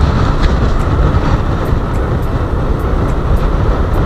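Steady wind rush and rumble on the camera microphone while riding a moving scooter, with its running noise underneath.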